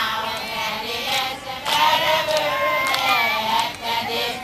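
A group of Satawalese women singing a dance chant together in high voices, with a few sharp hand claps.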